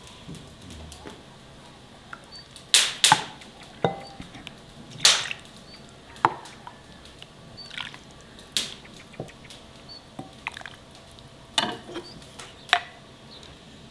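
A series of about a dozen sharp knocks and clinks at irregular intervals, a few ringing briefly.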